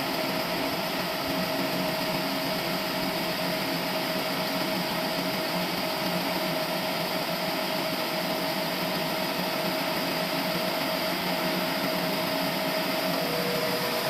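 Sawmill machinery running steadily, an even mechanical noise with a constant whine throughout.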